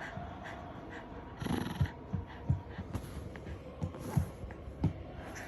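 Black mame-shiba puppy making short, irregular snorts and huffs while play-biting.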